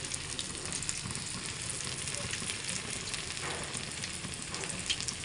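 Masala-coated fish frying in oil in a pan, giving a steady sizzle with fine crackling.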